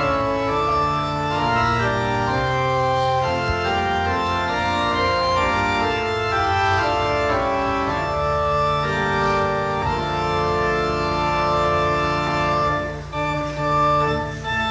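Organ music: sustained chords held and changing every second or two, with a brief dip in level near the end.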